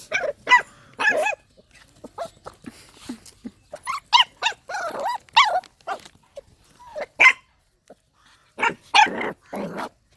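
Dogs barking and yelping in short bursts, with a cluster of calls near the start, another in the middle and more near the end.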